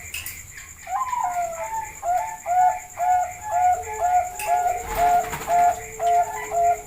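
Zebra dove (perkutut) singing: a rising opening note, then a steady run of short clear coos at about two per second, with a lower drawn-out note beneath them partway through.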